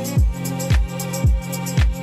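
Background music with a steady beat: a deep kick drum about twice a second under held chords.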